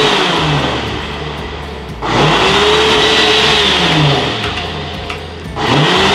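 Countertop blender blending crepe batter in pulses. The motor starts anew about two seconds in and again near the end, and each run's pitch rises and then sinks as it slows.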